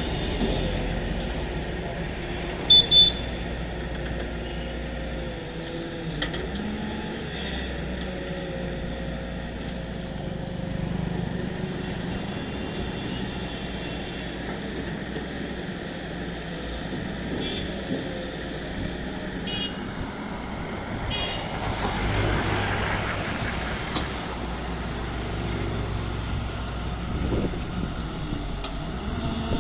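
Diesel engine of a JCB 3DX backhoe loader running steadily, rising in revs briefly around two-thirds of the way through. Two short, loud high beeps about three seconds in.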